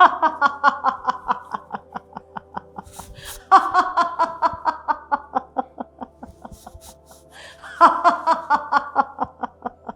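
Deliberate, loud laughter in a laughter-yoga exercise: three long bouts of rapid 'ha-ha-ha' pulses, about five a second, each starting loud and trailing off, the second about three and a half seconds in and the third near the end.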